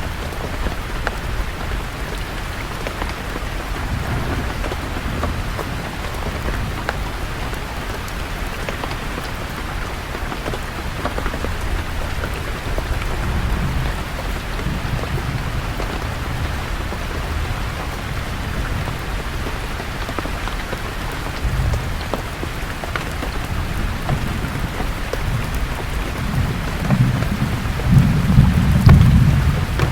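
Steady rain falling on leaves, with low rumbles of thunder coming and going. The loudest and longest rumble comes near the end.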